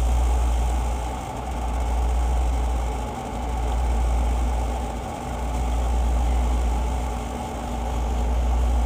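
A steady low machine hum that swells and fades about every two seconds.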